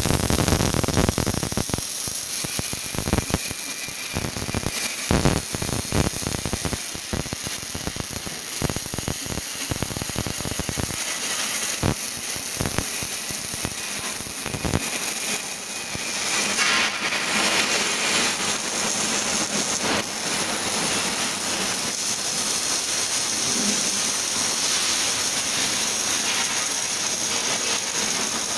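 Robotic arc welders on an auto rickshaw frame, the welding arcs crackling and spitting. There are many sharp clicks through the first half, and a steadier hiss from about halfway on.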